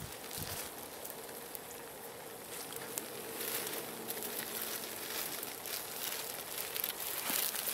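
Mushrooms sizzling in a metal cookpot hung over a campfire, a steady hiss with scattered crackles from the burning logs.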